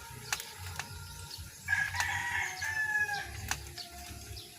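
A rooster crowing: one long, drawn-out call, falling slightly in pitch, starting about a second and a half in.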